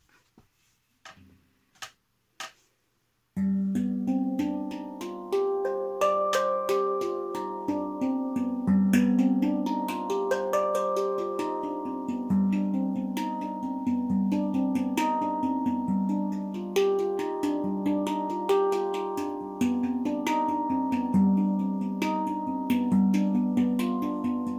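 Taopan handpan in the Kamseen scale played with bare hands: a steady stream of struck notes that ring on and overlap, with a low note recurring beneath the higher ones. The playing begins about three seconds in, after a few soft taps.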